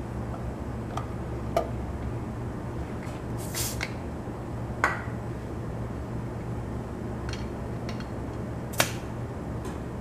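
Steady low hum of a shop fan, with a few scattered sharp clicks and clinks. The three sharpest come about a second and a half in, near five seconds and near nine seconds, and a brief scrape comes around three and a half seconds.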